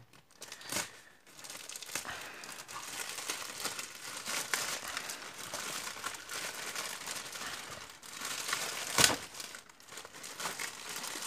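Plastic courier mailer bag being crinkled and torn open by hand, a continuous crackling of thin plastic. One sharp, loud sound of the plastic giving way about nine seconds in.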